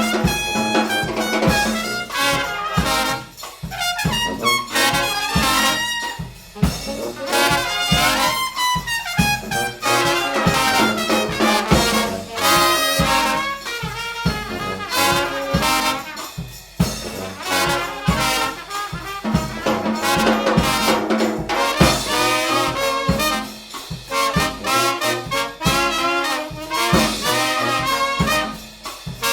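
A New Orleans-style brass band playing an up-tempo tune: trumpets and trombones carrying the melody over a steady drum beat.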